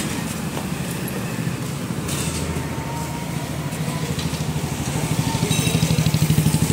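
Motorcycle engine idling with a steady, even pulse, getting louder near the end.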